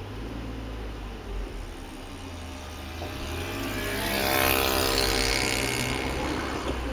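Low drone of a car driving slowly in traffic, heard from inside the cabin. From about three seconds in, another vehicle's noise swells, is loudest about a second later, and fades as it passes close by.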